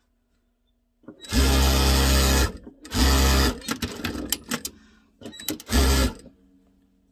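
Dürkopp Adler 281 industrial sewing machine stitching in three loud bursts, the first about a second long and the next two shorter, with softer irregular sounds between them.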